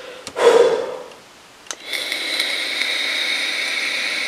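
A short, loud, breathy sound, then a click. After it comes about two and a half seconds of steady airy hissing with a thin whistle in it: a vape being drawn on while its coil fires. The hiss cuts off with a click.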